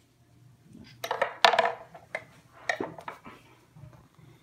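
Metal kitchen tongs and knife clinking and clattering: a quick run of sharp clinks about a second in, the loudest near a second and a half, then a few single clinks.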